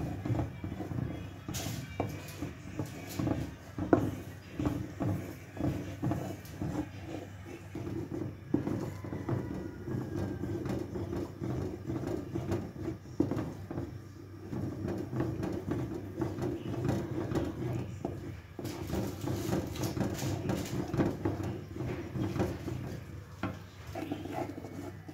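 A spatula scraping and knocking irregularly against an aluminium kadhai as a thick egg halwa mixture is stirred without pause, being roasted in ghee so it does not stick or lump, over a steady low hum.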